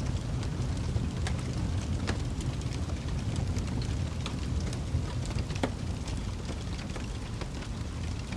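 Wood fire burning with a low steady rumble and frequent irregular crackles and pops, one sharper snap about five and a half seconds in.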